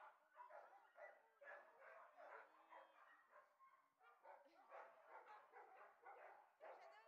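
Faint dog barking and yipping: many short calls in quick succession, with a few brief whines among them.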